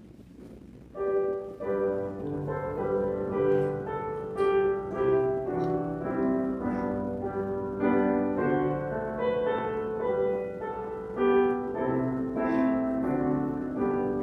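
Piano playing chords, starting about a second in.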